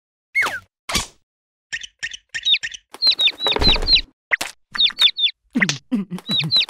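Animated chick cheeping: runs of short, high chirps, each falling in pitch. A dull thump comes about halfway through, and a cartoon character's low voice gibbers near the end.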